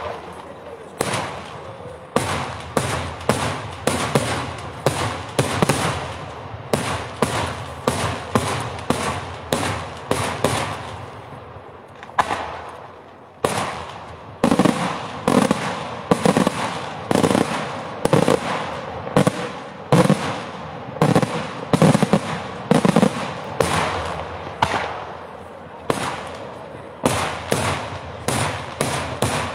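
Daytime fireworks: a rapid, irregular string of aerial shell bursts, about two sharp bangs a second. A short lull comes about twelve seconds in, and deeper booms follow it.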